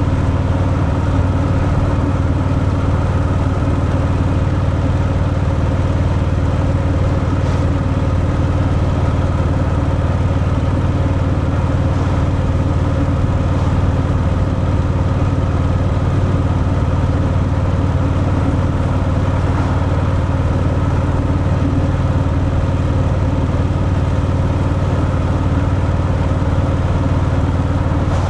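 Harley-Davidson Fat Boy V-twin engine on its stock exhaust, running steadily without any revving.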